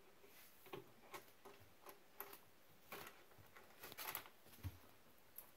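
Faint, irregular clicks and light taps over near silence, with a dull thump about four and a half seconds in.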